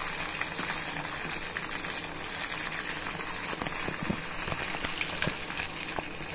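Marinated chicken hearts deep-frying in hot oil in an aluminium kadai: a steady sizzling crackle with scattered small pops.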